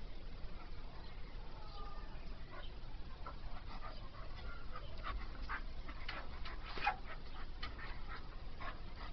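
A Staffordshire bull terrier panting and whimpering, with a run of short, sharp whimpers in the second half.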